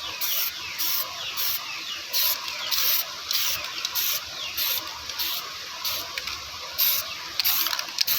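Aerosol spray-paint can hissing in short repeated bursts, about one and a half a second, as a refurbished refrigerator compressor is sprayed.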